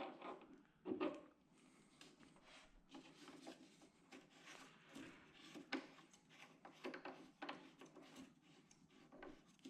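Faint handling clicks and rubbing as a MIG torch's Euro connector is pushed into the welder's socket and its collar screwed on, with one louder knock about a second in.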